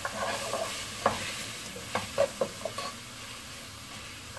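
Chopped onions frying in butter in a pan, a steady sizzle, with a spatula stirring and scraping against the pan in several short knocks during the first three seconds. The onions are salted to draw out their water and are just starting to colour.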